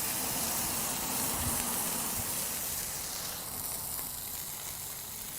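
Burger patties sizzling on a hot stainless steel griddle top: a steady hiss, with a couple of soft knocks in the first few seconds.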